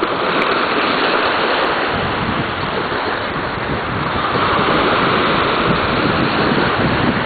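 Ocean waves and water washing, with wind buffeting the microphone: a steady rushing noise.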